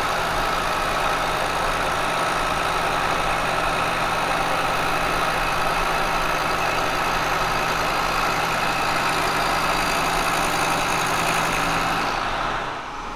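Kearney & Trecker milling machine running steadily, its carbide face mill turning and the table feeding the cast iron square casting under the cutter, with a constant hiss over a steady machine hum. The sound drops away suddenly near the end.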